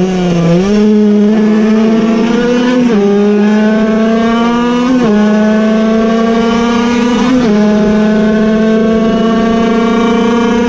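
Air-cooled, piston-port 50cc Puch Cobra two-stroke racing engine at full throttle, heard onboard. The revs dip at the start, then climb steadily, dropping sharply with upshifts about three, five and seven and a half seconds in.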